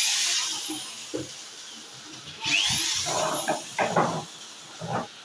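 Power screwdriver or drill run in two spells, its motor whine rising in pitch and then falling away as it slows, undoing the casing screws of an inverter welding machine. A few short knocks and clicks follow near the end.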